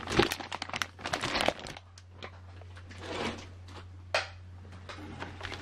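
Clear plastic parts bag crinkling and rustling as it is handled, dense for about the first second and a half, then softer rustles and one sharp click about four seconds in.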